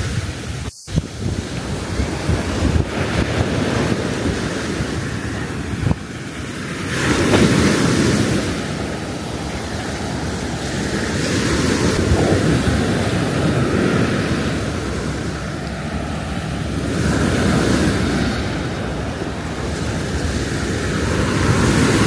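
Sea surf washing up the beach, swelling and falling back every few seconds, with wind buffeting the microphone. The sound cuts out for an instant about a second in.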